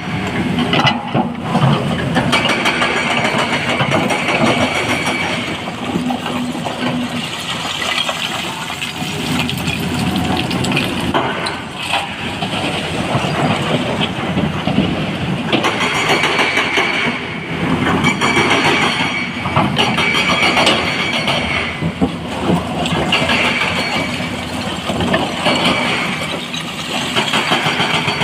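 Heavy diesel machinery, an excavator working and loading a dump truck, running steadily under load, with a high whine that comes and goes and a few sharp knocks.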